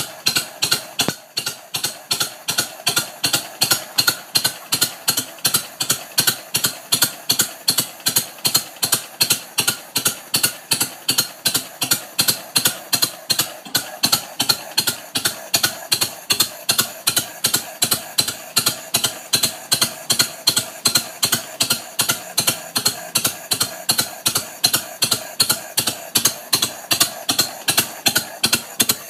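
1952 John Deere MT's two-cylinder engine idling steadily, its exhaust popping evenly about three times a second through the upright muffler. The engine has just had its valves ground and its carburetor rebuilt.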